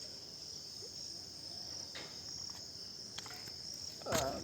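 Steady high-pitched chirring of insects, likely crickets, with a few faint ticks, and a brief voice-like sound near the end.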